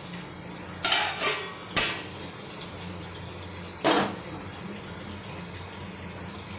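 Metal cookware clanking: an aluminium kadhai and its lid knocked about and set down on a gas stove, with about four sharp clanks in the first four seconds. After that only a steady background hiss remains.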